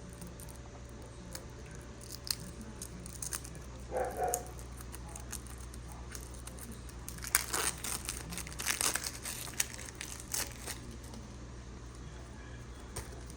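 Plastic shrink-wrap crinkling and tearing as a pack of game cards is unwrapped by hand, in scattered crackles that come thickest in the middle of the stretch.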